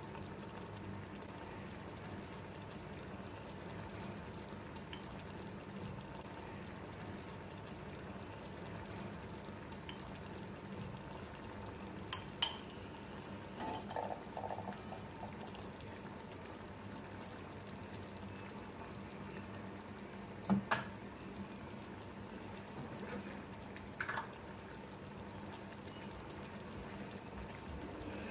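Chicken in masala gravy frying in a non-stick pan, a steady low sizzle, with a few sharp clinks and knocks scattered through the middle.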